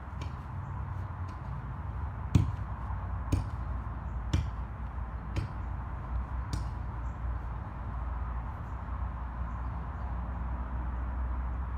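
A digging tool striking into hard soil five times, about a second apart, over a steady low rumble.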